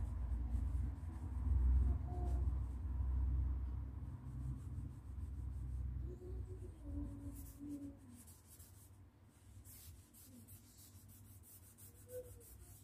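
A damp cloth rag rubbed back and forth against a painted plaster wall to scrub off crayon marks, a low scrubbing sound. It is loudest in the first few seconds and fades away after about eight seconds.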